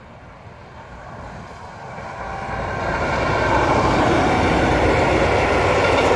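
DB Class 294 diesel-hydraulic locomotive hauling a train of tank wagons approaches and passes close by; the engine and wheel noise grows louder over the first three seconds, then stays at a steady loud rumble as the loco and tank wagons roll past.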